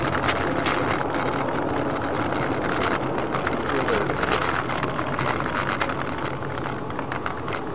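A car's engine and road noise: a steady hum with many scattered clicks and ticks.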